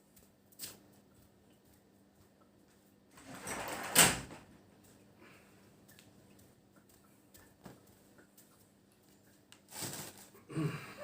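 A few faint clicks, then a short rustle ending in one sharp knock about four seconds in; a cat starts to meow right at the end.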